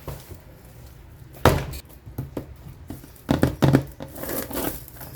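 Keyboard box and its packaging being handled: one sharp knock about a second and a half in, a few lighter knocks, then a stretch of rustling near the end.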